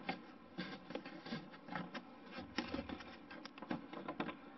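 Light, irregular taps and knocks of a small balsa glider fuselage and a sanding block being handled and set down on a plastic cutting mat.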